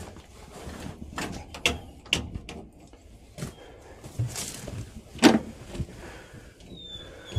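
Scattered clicks and knocks of a tractor cab door and fittings being handled. The loudest is a sharp knock about five seconds in.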